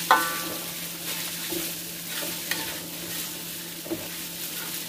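Ground spice paste sizzling in hot oil in a pan while being stirred, with a sharp metallic clink of the spatula against the pan right at the start.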